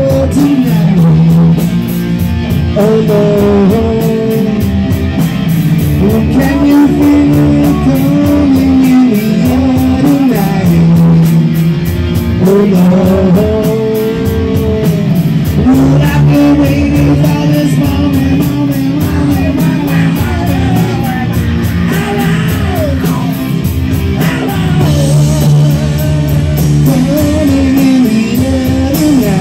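Live rock band playing loudly in a small room: guitars and a drum kit, with singing.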